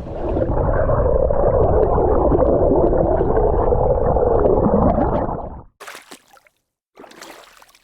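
Muffled rushing and gurgling of water heard with the camera's microphone dipped below the surface beside the boat; it cuts off suddenly about five and a half seconds in as the camera comes out, followed by short bursts of splashing water.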